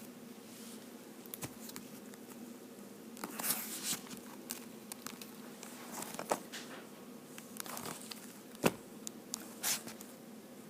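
Handling noise from a camera being moved and repositioned: scattered soft knocks, clicks and rustles, with one sharper knock near the end, over a faint steady hum.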